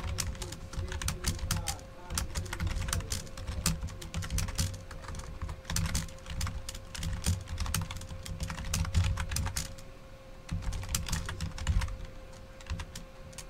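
Typing on a computer keyboard: bursts of rapid key clicks with short pauses between, dying away shortly before the end.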